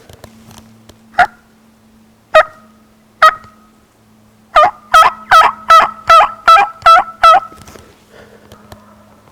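Hunter's turkey call yelping like a hen, close and loud: three single yelps about a second apart, then a fast run of about nine yelps, each note breaking from a low to a high pitch. The yelping is meant to make the two gobblers answer.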